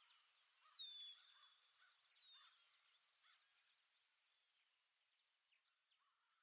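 Faint outdoor ambience: a steady high, evenly pulsing insect chirp, with two falling bird whistles in the first couple of seconds, fading out near the end.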